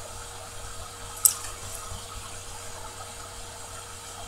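Steady background hiss with a faint electrical hum, and one short sharp click about a second in.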